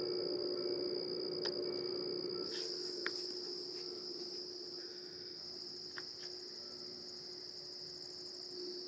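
Crickets chirring in a steady, high, unbroken trill, with a faint low steady hum beneath and a few soft ticks.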